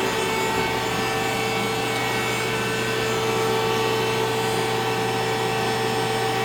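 Ace LT-20 CNC lathe running under power: a steady machine hum with several fixed tones over a hiss, unchanging throughout.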